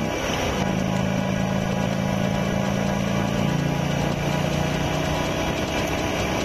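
Buell XB12X's air-cooled V-twin engine running at steady cruising speed on an expressway, with wind and road noise. The engine note breaks briefly just after the start, then holds steady.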